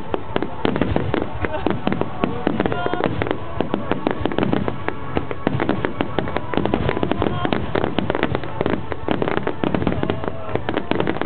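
Dense, continuous barrage of aerial firework shells bursting and crackling, several sharp reports a second without a break.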